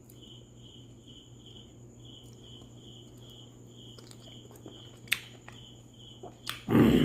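A cricket chirping steadily, about two to three short chirps a second, over a low hum. Scattered small clicks, then a loud thump with a rustle near the end.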